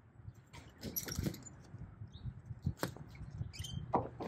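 Curtain-side trailer's metal curtain hardware clicking and rattling in a series of short knocks as it is worked by gloved hands to open the side curtain, with a brief high squeak near the end.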